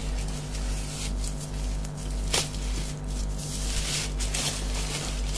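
A taped cardboard parcel being handled and turned over, its cardboard and wrapping rustling and scraping, with one sharp tap about two and a half seconds in. A steady low hum runs underneath.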